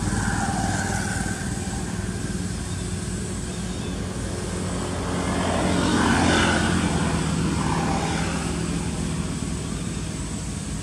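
Steady engine hum of a passing motor vehicle, swelling to its loudest about six seconds in and then fading.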